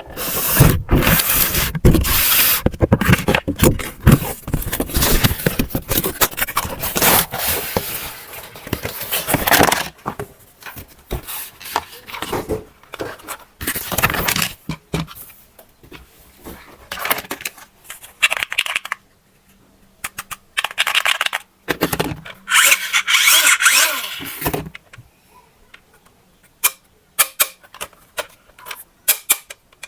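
Handling noises: irregular scraping, rustling and clicking as objects are handled, dense for the first ten seconds and then in scattered bursts with pauses.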